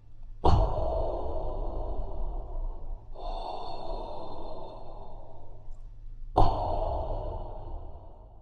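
Darth Vader-style respirator breathing sound effect: slow, hissing breaths through a mask. It goes in, out and in again, each breath lasting about three seconds, with a faint high whistle over the hiss.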